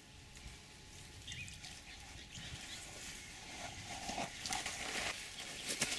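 Water splashing and dripping as a mesh landing net holding a carp is lifted out of reedy shallows, faint at first and getting louder and more broken toward the end.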